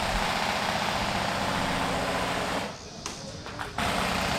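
Airsoft electric gun firing on full auto in a long, steady rattling burst. It breaks off about two-thirds of the way through and starts a second burst near the end.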